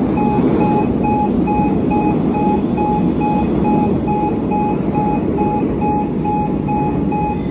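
Cairo Metro train pulling into an underground station and running along the platform: a steady rumble of wheels on rail. A short high beep repeats about three times a second throughout.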